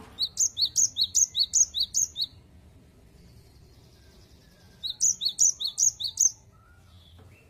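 Cinereous tit (gelatik batu) singing its 'wucit-wucit' song: a rapid string of repeated two-note phrases, each a lower then a higher whistle, given in two bursts, about two seconds and then about a second and a half, with a pause between.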